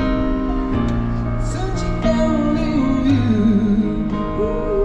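Music: a slow piece with a wavering melody, possibly sung, over long held low notes.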